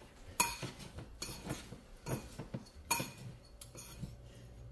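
Metal spoon clinking and scraping against a mixing bowl while stirring cinnamon into a dry oat crumble mixture, with about seven sharp clinks at uneven intervals.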